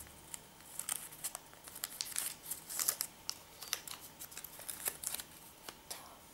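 Thin paper instruction leaflet from a Kinder Surprise toy capsule being unfolded by hand, crinkling and rustling in many short crackles at irregular intervals.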